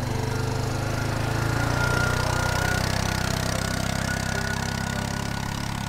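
A small engine running steadily at low speed, a little louder about two seconds in.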